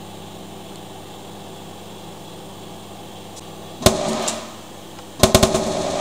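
Microwave oven running with a steady hum; about four seconds in a sharp pop, then a second later a loud bang followed by rapid crackling: a whole egg bursting inside the microwave.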